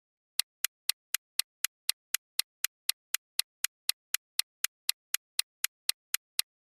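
Quiz countdown-timer sound effect: sharp clock ticks, about four a second, running for about six seconds and stopping as the count reaches zero.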